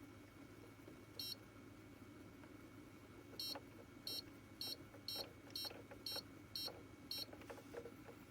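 Electronic appliance beeping: one short high beep, then after a pause a run of eight short beeps at about two a second, with a few light clicks among the later ones over a steady low hum.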